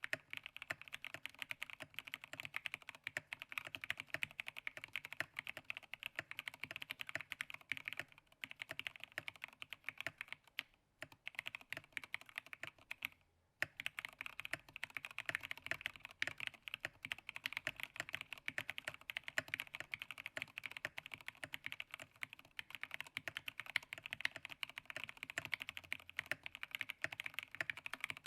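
Fast, continuous typing on a Matrix Abel keyboard: a dense stream of key clicks, broken by short pauses about 8, 11 and 13 seconds in.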